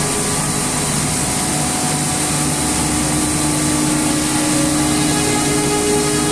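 Plastic film pelletizing line running in operation: the extruder's electric drive motor and gearbox make a steady mechanical drone with a few held tones over a loud hiss.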